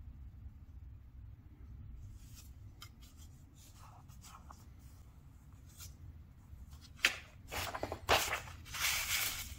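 Paper instruction booklet pages being turned and pressed flat by hand: soft scattered rustles, then louder paper rustling and rubbing in the last couple of seconds, over a low steady hum.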